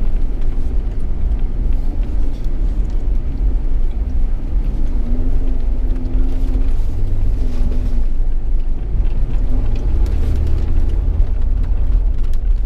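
An off-road vehicle's engine running under way on a desert track, over a steady low rumble. The engine note rises and falls a little about halfway through.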